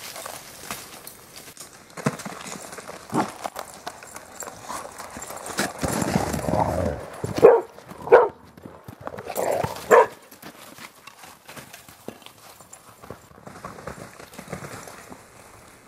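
Footfalls crunching and padding on snow as dogs run and play, with three short, sharp, louder sounds a little past halfway.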